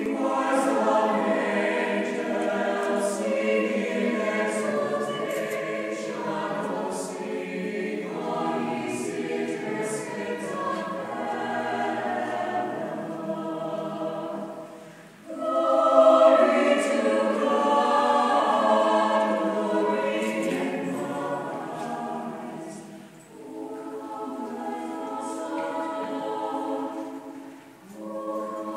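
A choir singing in several voices, phrase after phrase, with short breaks between phrases; the fullest, loudest entry comes about halfway through.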